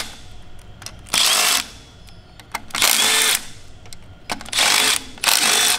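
Cordless power driver spinning out the water pump bolts in four short bursts, each about half a second long.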